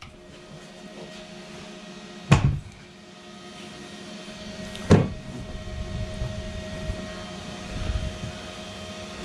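Heavy engine-room door being opened and passed through: two sharp knocks, about two and five seconds in, over a steady machinery hum with a few faint steady tones that grows louder once the door is open.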